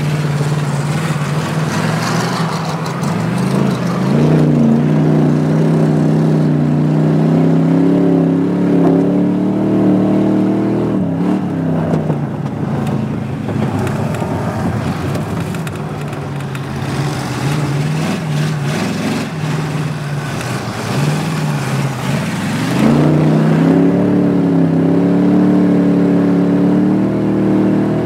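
Race car engine heard from inside the car while racing on ice. It revs up about four seconds in and holds high, drops back around the middle, then climbs again twice in the second half as the driver accelerates and lifts.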